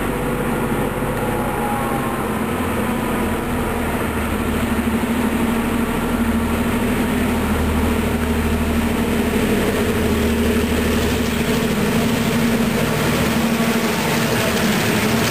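Diesel locomotives of a welded rail train, EMD MP15AC units, approaching with a steady engine drone that grows gradually louder. The lead locomotive passes close near the end, bringing in wheel noise on the rails.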